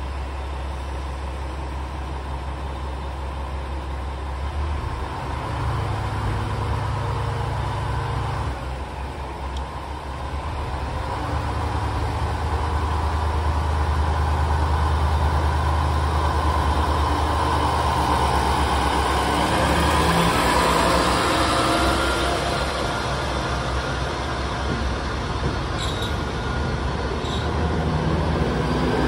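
JR West KiHa 47 diesel railcar's engine running with a steady low hum, growing louder about a third of the way in and staying loud as the train pulls slowly past, with two sharp clicks near the end.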